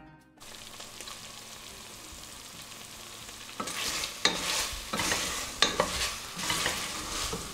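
Lamb chops sizzling in a steel pressure cooker as the last of their cooking liquid cooks off, at first a steady low sizzle. From about three and a half seconds in, a wooden spatula stirs and scrapes them against the pot in repeated strokes, roughly twice a second.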